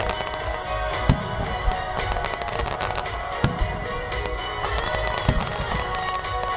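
Fireworks display finale: aerial shells bursting with several deep booms, the clearest about a second in, midway and near the end, over continuous fine crackling from the shells and a ground fountain. Music plays steadily throughout.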